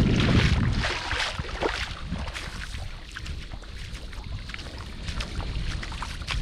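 Wind buffeting the microphone with a low rumble that eases after about a second, leaving a faint hiss with scattered small clicks.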